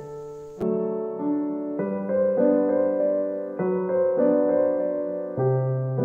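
Background music: sustained piano chords that change about once a second.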